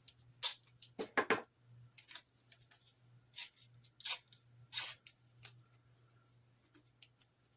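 Hands handling plastic model parts and tape at a workbench: a string of sharp clicks and taps, with three short scraping rustles around the middle.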